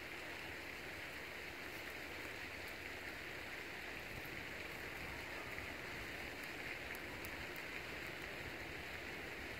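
A steady, even hiss with a few faint, sharp ticks over it.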